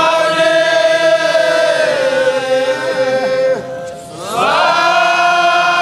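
Male voices chanting a devotional Mawlid hymn in Arabic, drawing out long held notes. The chant breaks off briefly about four seconds in and starts a new phrase.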